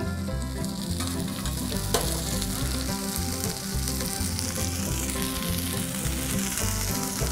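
Crinkle-cut fries in canola oil, cheese-topped burger patties and buttered buns sizzling steadily on a hot Blackstone flat-top griddle, with a single light tap about two seconds in.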